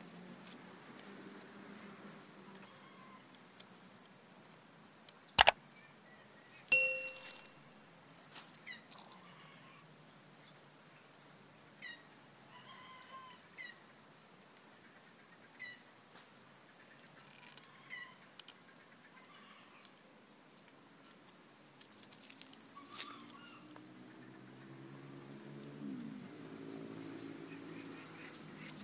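Scattered short bird chirps, with a sharp click about five seconds in and, a moment later, a metallic clang that rings briefly and dies away.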